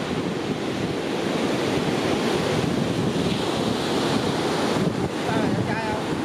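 Surf washing on the shore with wind buffeting the microphone: a steady, low rushing noise. A brief high cry is heard near the end.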